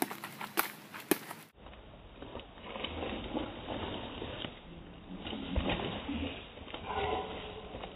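Footsteps and scuffling of a staged stick fight on a dirt forest path, with a few sharp clacks in the first second and a half. After a cut the sound turns duller and muffled, an uneven shuffle of movement.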